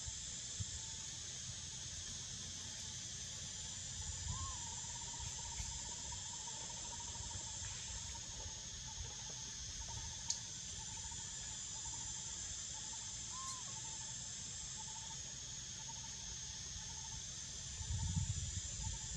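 Outdoor ambience of insects shrilling steadily at a high pitch, with a faint thin continuous tone beneath. A low rumble swells near the end.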